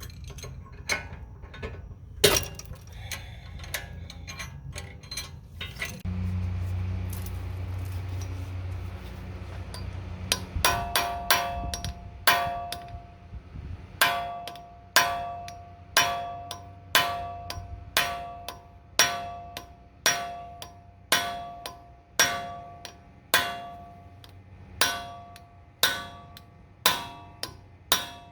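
Hammer blows on a steel tie-rod-end removal tool, knocking the CV axle loose. Steady strikes come about one a second from about a third of the way in, each with a clear metallic ring. Before them there are scattered knocks and clicks and a low hum lasting a few seconds.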